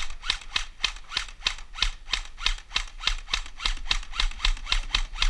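Fast, even crunching footsteps, about five a second, from someone moving quickly over dry ground and brush, with dull bumps of gear and camera mount underneath.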